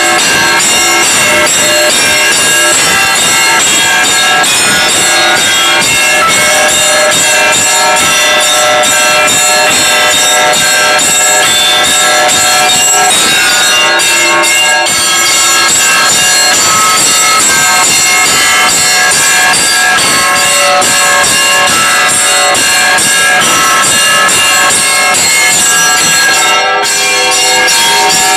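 Russian Orthodox church bells ringing in a loud, continuous peal: many bells sound together, with rapid strikes on the small bells over long-ringing tones.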